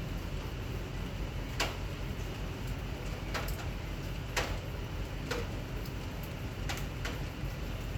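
Steady heavy rain with a low rumbling hiss, and about six sharp ticks scattered through it.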